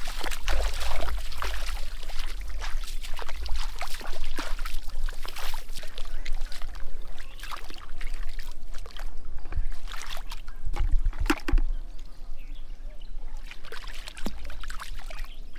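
Water splashing and trickling in irregular crackly bursts, dense at first and thinning out in the second half, over a low rumble.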